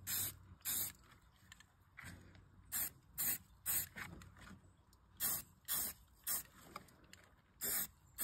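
Aerosol can of brown spray paint hissing in about a dozen short spurts, in pairs and threes, as paint is dabbed through a stencil.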